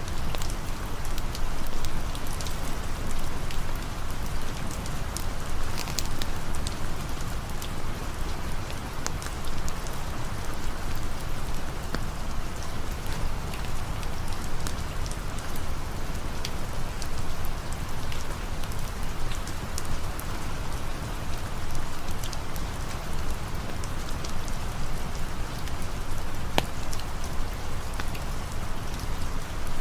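Steady rain falling, mixed with the scattered sharp ticks and pops of a crackling campfire.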